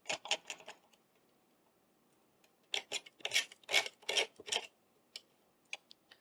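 A metal hand tool scraping and prying at the wood of an old sash window in short, hard strokes: a quick run of scrapes at the start, then about six stronger ones a few seconds in. The piece it is working on is stuck tight and will not budge.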